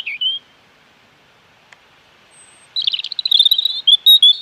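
Robin singing: a phrase of high, quick warbling notes ends just after the start, then after a pause of about two seconds a second warbling phrase begins.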